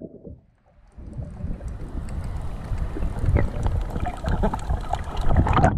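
Water sloshing and bubbling as heard through a camera microphone held underwater: a muffled, low rumble with small clicks and pops. It starts about a second in and grows louder near the end.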